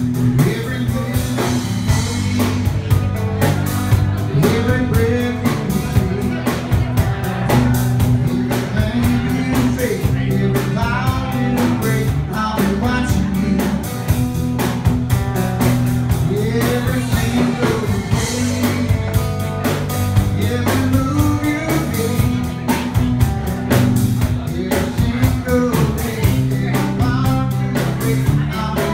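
Live band playing a rock song: a five-string electric bass, a strummed acoustic guitar and a Pearl drum kit keeping a steady beat, with a voice singing over them.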